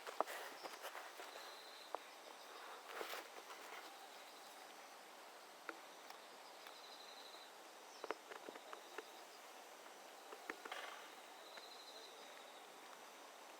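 Quiet outdoor ambience: a short, high, pulsing insect trill that comes three times about five seconds apart, with scattered small clicks and rustles.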